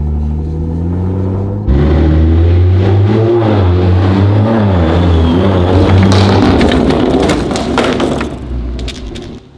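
Tuned, big-turbo BMW 340i's B58 turbocharged inline-six running steadily, then revving hard under acceleration about two seconds in, its pitch rising and falling. It fades near the end, with a few sharp cracks.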